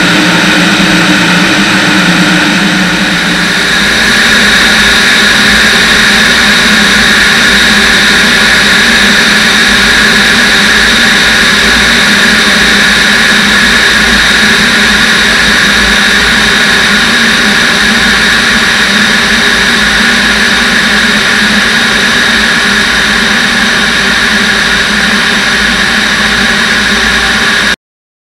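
Steady in-flight drone of a Van's RV-10's piston engine and propeller, mixed with airflow noise, picked up by a wing-mounted camera. The tone shifts about three seconds in, and the sound cuts out abruptly near the end.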